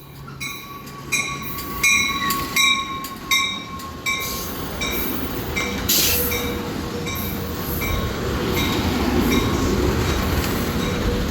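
Capitol Corridor passenger train rolling into the station: a run of sharp, ringing metallic clicks from the wheels over the rail joints, with a thin steady squeal through the first few seconds. A low rumble builds in the second half as the cars pass close.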